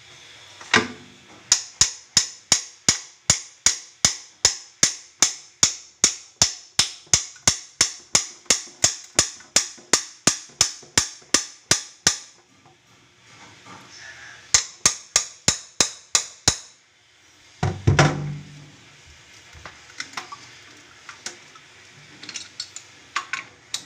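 Sharp taps in an even, rapid series, about four a second for some ten seconds. After a short pause comes a second, shorter run, then a single heavier knock.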